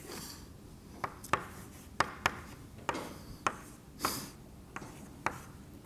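Chalk on a blackboard as a diagram is drawn: about eight sharp taps and clicks of the chalk, with two longer scratchy strokes, one at the start and one about four seconds in.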